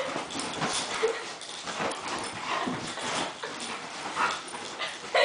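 A dog making short vocal play noises while wrestling on a bed, with scuffling on the bedding.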